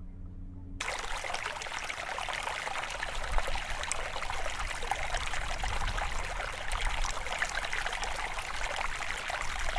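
A creek flowing and trickling steadily. It starts abruptly under a second in, cutting off a low, steady hum.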